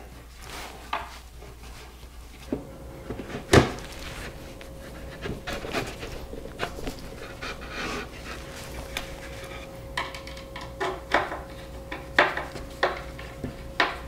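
Hex wrench turning the set screws of knock-down furniture connectors and hands handling a plywood box: scattered light clicks, taps and rubbing, with one sharper knock about three and a half seconds in.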